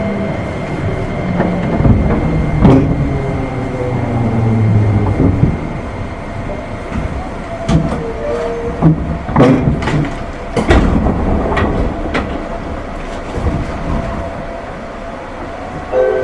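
JR 205 series electric train running, with a steady rumble of wheels on rail. Several sharp clacks come through the middle stretch, as the wheels cross rail joints, and the running sound eases off somewhat near the end.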